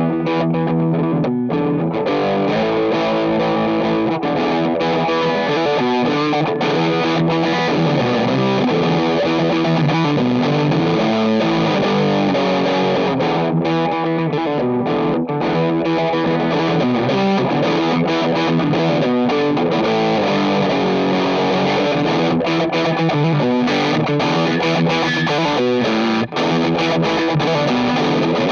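Electric guitar, a 2009 Gibson Pearly Gates Les Paul, played steadily through a Fuzzrocious Demon overdrive pedal, giving low-to-medium gain distortion, with drums playing along.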